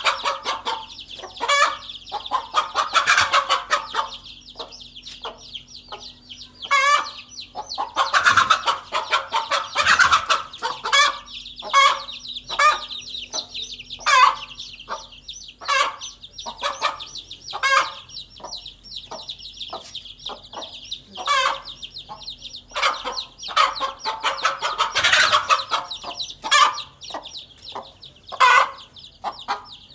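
A hen clucking sharply and repeatedly, roughly once a second with bursts of quicker calls, as she confronts a king cobra. A continuous high-pitched trilling runs underneath.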